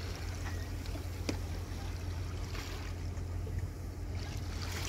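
Steady low drone of a boat under way, with a hiss of water along the hull and a short click about a second in.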